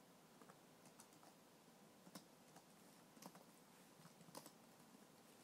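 Faint computer keyboard typing: about a dozen irregular, short keystroke clicks over near-silent room tone.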